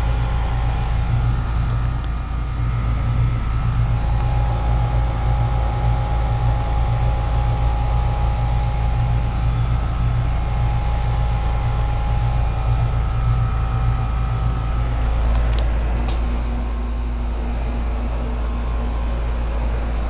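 2004 Goodman 10 SEER 3.5-ton heat pump outdoor unit running in cooling mode, its Copeland compressor and condenser fan making a steady, loud low hum with a constant whine above it. A single click sounds about three-quarters of the way through.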